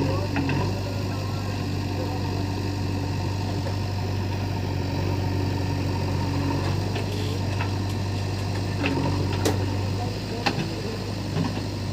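Diesel engine running steadily at low speed, a deep even hum, with a few sharp knocks in the last few seconds.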